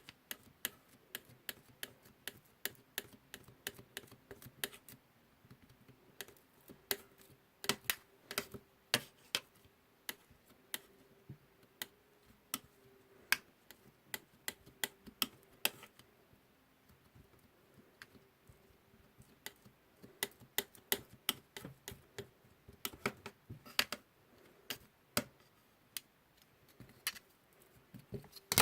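Metal spatulas tapping and scraping on a rolled-ice-cream cold plate: irregular sharp clicks, often several a second in quick runs, with short pauses between. A faint steady hum sits underneath and fades away past the middle.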